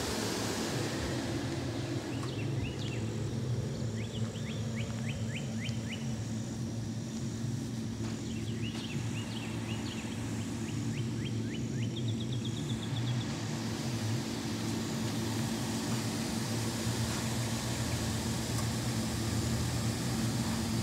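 A vehicle engine idling steadily with a low, even hum. Birds call over it: two runs of short, quick downward chirps and a brief high trill about twelve seconds in.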